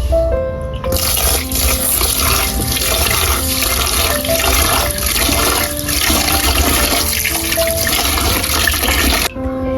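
Tap water running hard into a sink, turned on about a second in and off near the end, over soft background music.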